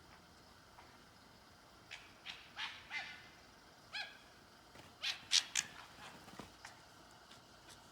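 Two red foxes calling: short, sharp, high cries, a cluster of four about two seconds in, one at four seconds, and a louder cluster of three about five seconds in.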